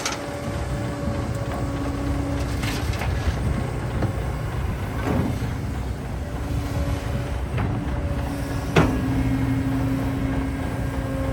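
Excavator's diesel engine running steadily, with a hydraulic whine that comes and goes as the machine works and a few metallic knocks, the sharpest about three quarters of the way through.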